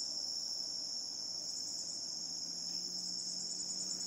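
Steady, high-pitched chorus of insects such as crickets, going on without a break.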